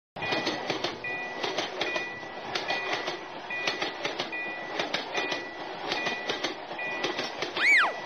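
Train-running sound effect for a cartoon train: a steady rumble with rhythmic wheel clatter and a short high tone that repeats about every 0.8 s. Near the end comes a quick cartoon glide whose pitch rises and then falls.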